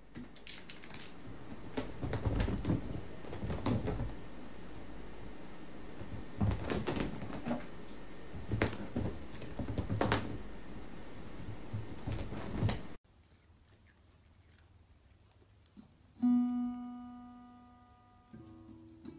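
A noisy stretch full of knocks and thumps that cuts off suddenly. A few seconds later an acoustic guitar is plucked, its notes ringing out and fading, with another note struck near the end.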